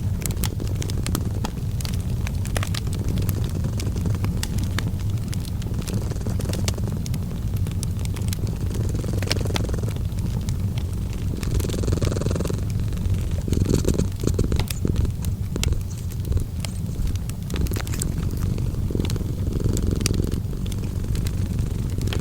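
Cat purring in a steady low rumble that swells every few seconds, mixed with wood fire crackling and popping in a fireplace.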